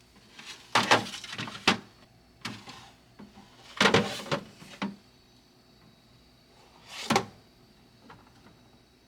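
Items and storage containers being handled and set down in a refrigerator: bursts of clattering and knocks about a second in and about four seconds in, a lighter knock in between, and a single knock about seven seconds in.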